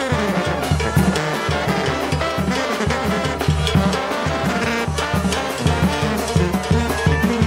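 Live Mexican banda (brass band) playing: trombones and sousaphone over drums and cymbals keeping a steady beat.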